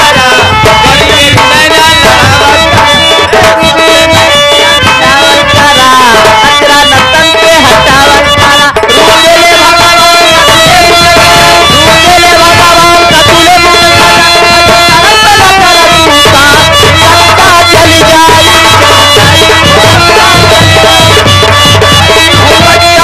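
Loud live nautanki folk music: a hand drum playing a steady rhythm under a continuous melody that slides in pitch.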